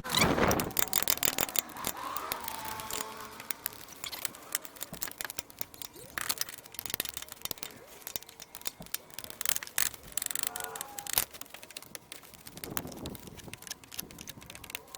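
Ratchet and torque wrench clicking in irregular runs with the clatter of metal hand tools, as the water pump bolts on a Toyota Camry 2.5 L four-cylinder are tightened and torqued.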